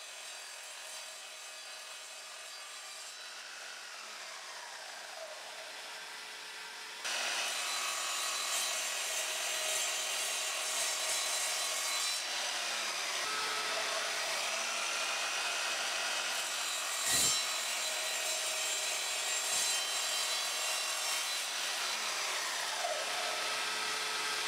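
Evolution Rage 3 sliding mitre saw running and cutting through 10 mm aluminium plate clamped in a plywood jig. It makes a steady cutting noise with a whine that sweeps up and down in pitch, is louder from about seven seconds in, and has two brief knocks in the second half.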